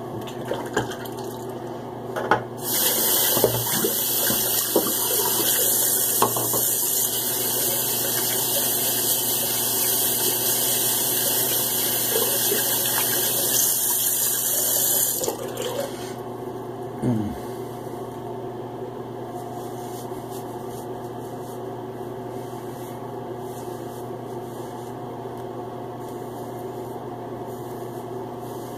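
Bathroom tap running into a sink: turned on a few seconds in, it runs steadily for about twelve seconds, then is shut off sharply. A few small knocks and clicks come around it, over a steady low hum.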